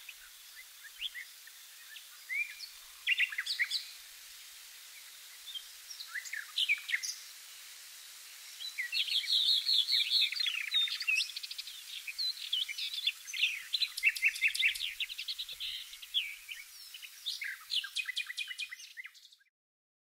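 Woodland songbirds singing and chirping, a mix of short calls and trills, sparse at first and busy from about nine seconds in, fading out near the end.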